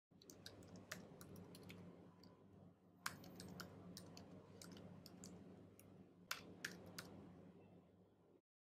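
Faint computer keyboard typing: irregular key clicks, a few sharper ones about three seconds in and again around six, over a low steady hum. It stops abruptly shortly before the end.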